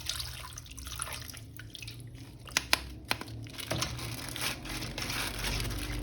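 Faint handling noises of a plastic action figure being worked with the hands: light crinkling and dripping, with two sharp clicks close together about two and a half seconds in.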